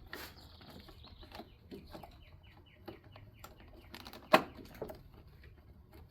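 Pliers and hands working a plastic wiring-harness connector in an engine bay: scattered small clicks and scrapes, with a quick run of short high chirps in the middle and one sharp, loud click about four seconds in, typical of the connector's latch letting go.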